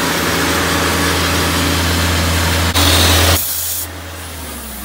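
Compressed air from a tow-behind air compressor blasting through a pipe stuck into a well casing, a loud rushing hiss as the residual water at the top of the well is blown out during winterization. It swells louder briefly and cuts off suddenly when the valve is shut about three and a half seconds in, leaving an engine running underneath.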